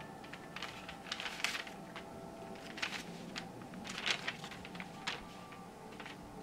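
Crisp rustling and crackling of paper in several short bursts as a letter is drawn out of its envelope and unfolded, the loudest bursts about a second and a half in and about four seconds in.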